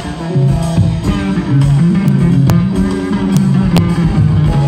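Live band music in which a double bass plays a plucked bass line, with a few sharp drum taps.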